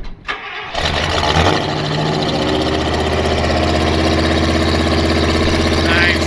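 Gasoline V8 of a 1975 International fire truck starting within the first second, then settling into a steady idle. It is heard from right by the exhaust at the rear of the truck.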